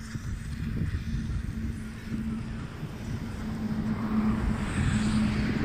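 Van engine idling steadily, with wind rumbling on the microphone.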